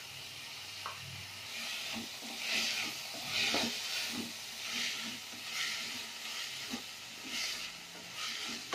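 Chopped onions and tomatoes sizzling in oil in a metal pan while a wooden spatula stirs them, with repeated swishing scrapes about once a second and a few light knocks of the spatula on the pan.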